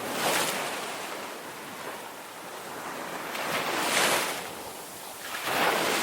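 Sea waves washing in, the rush of water swelling and falling back three times.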